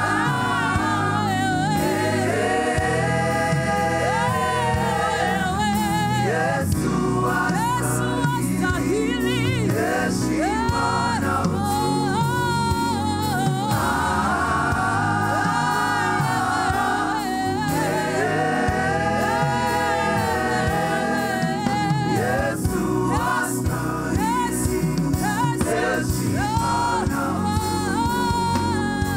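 Gospel praise-and-worship song: voices singing with vibrato over steady instrumental backing.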